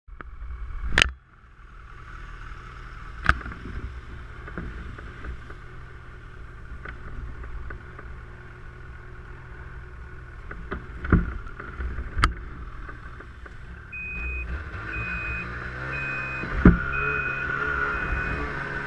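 Snowmobile engine idling with a steady low hum, broken by a few sharp knocks, and from about two-thirds of the way in a high electronic beep repeating about twice a second.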